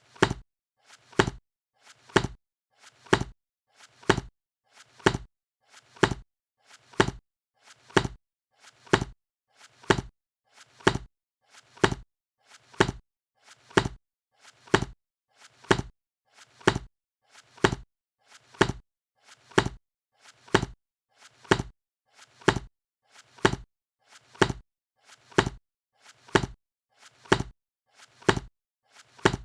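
A book being shut over and over, about once a second. Each closing is a sharp slap with a faint lead-in just before it.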